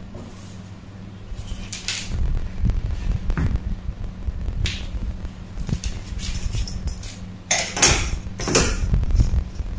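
Hands rustling fabric and a tape measure on a wooden table, with a few short scratchy handling noises. Near the end a louder clatter comes twice in quick succession as a long steel ruler is picked up and laid across the fabric.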